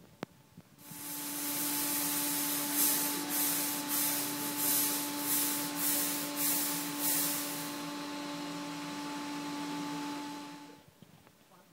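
A machine blowing air: a loud, steady rushing hiss over a constant hum. It starts abruptly about a second in and stops near the end, and in the middle the hiss swells in quick, irregular spurts.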